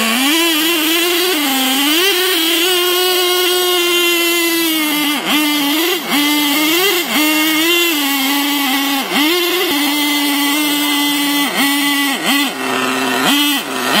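Radio-controlled monster trucks revving as they pull against each other on a tow line. A high engine note runs throughout, its pitch dipping sharply and climbing back again and again as the throttle changes.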